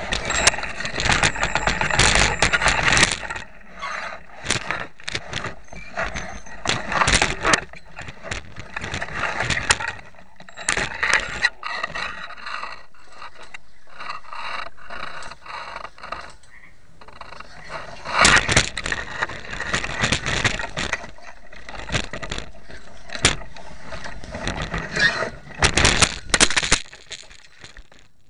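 Leaves and branches scraping and rustling against a quadcopter caught in a tree as it is prodded with a long irrigation pipe, in irregular loud bursts, heard close on the quad's own onboard camera.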